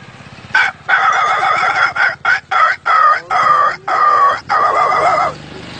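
A man's voice imitating a puppy: a string of about nine short, high whining yelps in quick succession.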